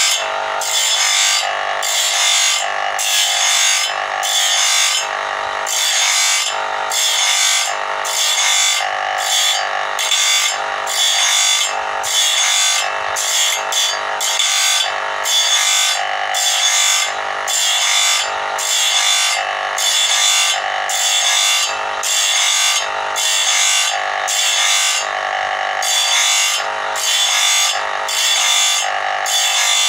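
Electric motor-driven grinding wheel sharpening the teeth of a sawmill band-saw blade, the wheel whining and rasping against the steel as each tooth is ground in turn, in a loud, regular pulsing rhythm.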